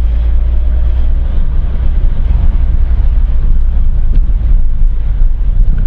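Motorcycle being ridden along at steady speed: a continuous low rumble of engine and road noise that holds steady.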